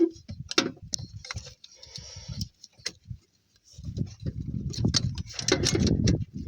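Ratchet wrench clicking in a series of short strokes as a bolt is tightened. In the second half there is a louder stretch of low rubbing and handling noise along with the clicks.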